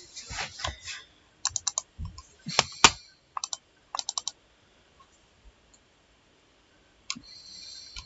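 Computer mouse button clicking: quick double-clicks in small tight bursts, then a pause of a few seconds and one more click near the end.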